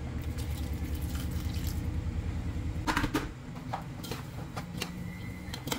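Water bubbling and sizzling in a hot wok of stir-fried noodles, chicken and vegetables, with a couple of sharp clinks of a utensil against the wok about three seconds in.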